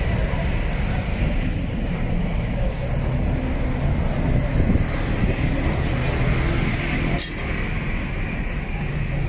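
Steady rumble of busy street traffic, cars and buses passing close by, with one short knock about seven seconds in.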